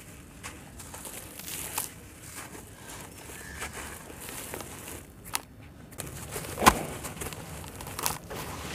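Hands crumbling a sand-and-cement chunk in a tub of muddy water: gritty crunching and crackling as the chunk breaks apart and falls into the water, with a few sharp cracks, the loudest about two-thirds of the way through.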